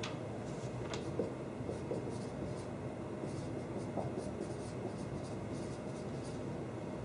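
Dry-erase marker writing on a whiteboard in many quick, short strokes, over a steady background hum.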